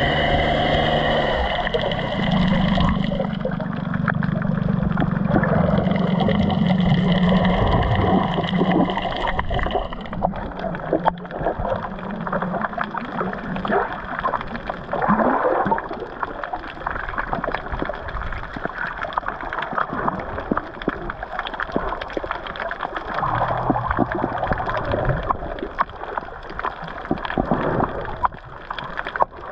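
Water gurgling and splashing around a GoPro camera while snorkelling. A steady motor hum runs under the water sounds for about the first ten seconds, then fades, leaving irregular sloshing and splashes.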